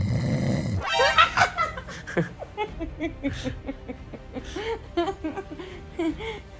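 A snore lasting under a second, then a few seconds of short, bouncing squeaky pitched sounds.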